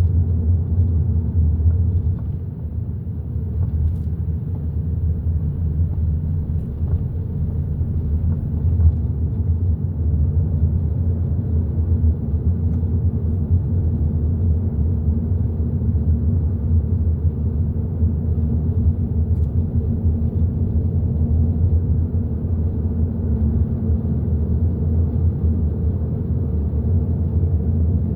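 Hyundai i30 N Line driving at a steady pace: a continuous low rumble of engine and tyres on the road, easing slightly for a moment about two seconds in.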